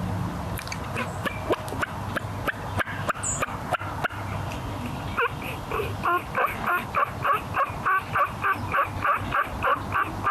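Turkey yelping: a long, even series of yelps, about four a second, beginning about five seconds in. It follows a few scattered sharp clicks and short calls.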